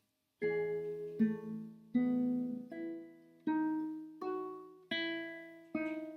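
Classical guitar playing a slow fingerpicked passage in E major: about eight notes plucked one after another, roughly one every three-quarters of a second, each left to ring over a held bass note.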